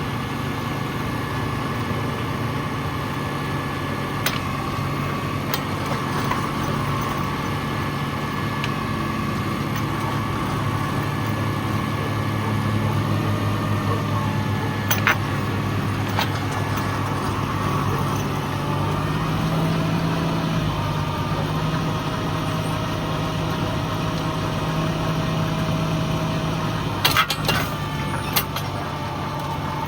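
Tractor engine running steadily as it digs, its speed rising and falling a few times. Several sharp knocks cut through, the loudest a quick cluster near the end.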